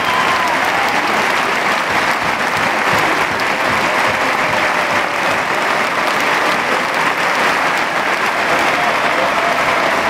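Stadium crowd applauding steadily.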